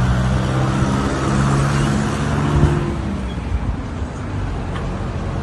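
Street traffic: a motor vehicle's engine running with a steady low hum over the noise of the road, the engine fading out about three seconds in.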